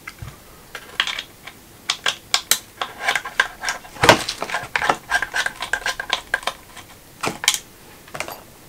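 Irregular small clicks, taps and knocks of a screwdriver working screws out of a DJI Robomaster S1's plastic gimbal housing while the housing is handled. The loudest knock comes about four seconds in.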